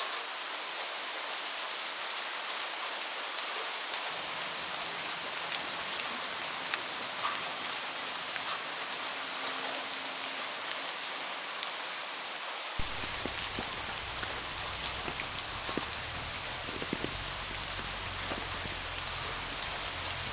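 Steady rain falling, with many separate drops ticking sharply through the hiss. About two-thirds of the way through, a low steady rumble comes in suddenly underneath.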